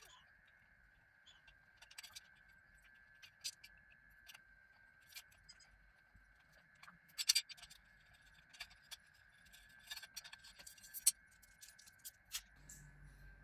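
Irregular small clicks and short scrapes of metal parts being handled and screwed in by hand with a screwdriver while a bathroom rack is fitted, with the loudest clicks about seven and eleven seconds in. A steady high-pitched hum runs underneath.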